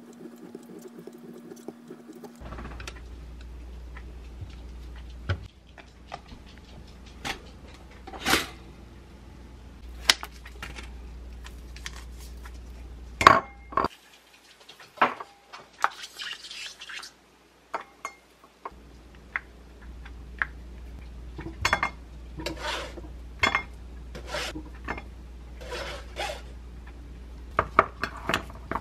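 Kitchen utensil sounds: a knife and spoon clicking, tapping and scraping against a speckled enamelware bowl as Greek yogurt is scooped in and blueberries are stirred through it, in many separate short clinks.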